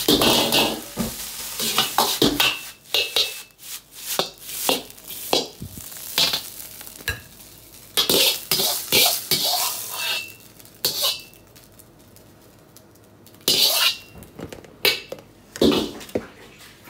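Metal ladle clanking and scraping against a wok as egg fried rice is stir-fried and tossed, with the rice sizzling. The clatter comes in quick clusters and eases off for a couple of seconds before a last run of clanks.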